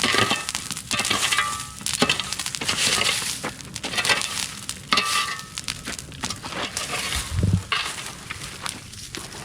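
Bonfire of dry cleared brush burning, crackling with dense, irregular pops and snaps as the dry branches catch.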